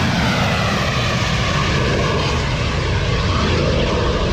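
Rocket motor of a ship-launched missile burning just after launch: a loud, steady rushing noise with a slowly falling sweep in its tone as the missile climbs away.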